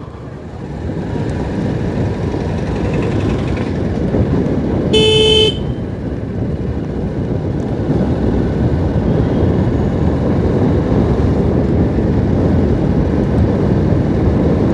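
Motorcycle engine running under the rider, with a steady low rumble of road and wind noise that grows louder over the first couple of seconds as the bike picks up speed. A vehicle horn gives one short toot about five seconds in.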